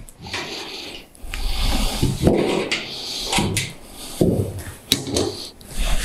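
Painted sheet-steel roofing panel being bent and handled by hand on a workbench, as a small seam fold is turned back. The metal flexes and rubs against the bench, with several knocks and clicks.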